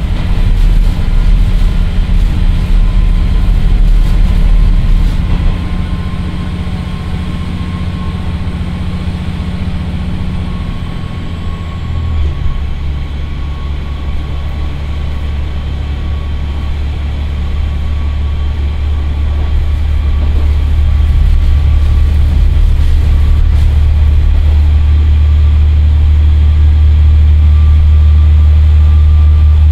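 Onboard sound of a KiHa 40-8000 diesel railcar under way on an uphill grade: its Komatsu SA6D125HE-1 diesel engine (330 PS) driving through a TACN-22-1600 hydraulic transmission, a deep steady drone. About twelve seconds in the engine note changes, and the sound then grows steadily louder, with a faint whine slowly rising in pitch.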